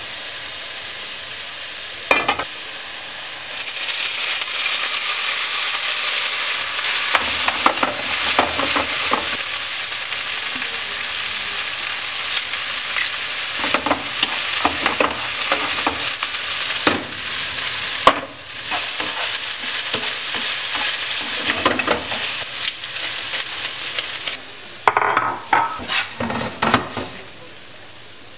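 Rice frying in hot oil in a frying pan: a loud sizzle that starts a few seconds in and runs on while a wooden spatula stirs, knocking and scraping against the pan. Near the end the sizzle drops away and there is a quick run of knocks and clinks.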